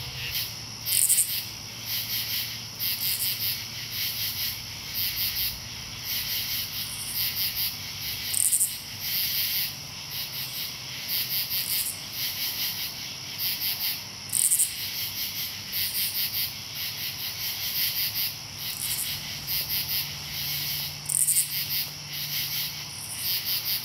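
A chorus of katydids calling, many overlapping rasping calls repeating in a steady rhythm. A few louder, higher-pitched calls stand out now and then.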